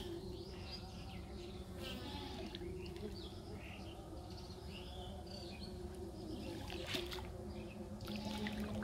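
Outdoor pond ambience: a steady low hum with scattered short bird chirps over it, and faint sloshing of water as a man gathers a cast net by hand.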